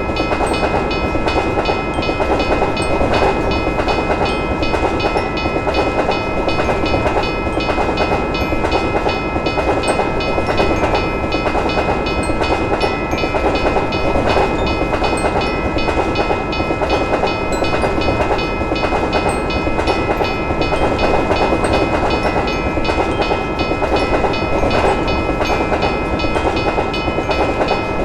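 A railroad crossing bell rings with steady, evenly repeated strikes over the continuous rumble and wheel clatter of a passing train.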